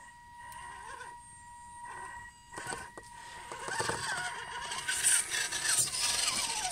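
Small electric motor and gearbox of an RC scale crawler whining as the throttle is feathered, the pitch rising and falling about once a second over a steady high electronic whine. About two and a half seconds in it gets louder and rougher as the truck climbs over roots and drives up close.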